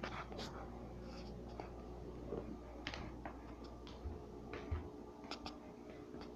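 Faint, scattered light clicks and rustles, with two soft thumps about four and four and a half seconds in, as a cat paws at and bumps into a phone held close to it.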